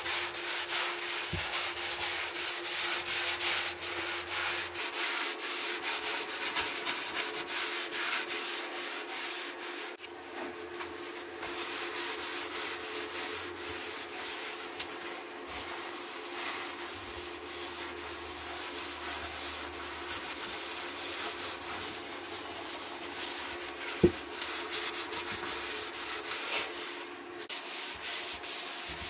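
A cloth rubbing in quick back-and-forth strokes over a wooden hammer handle, wiping on wood stain, over a faint steady hum. One sharp knock stands out late on.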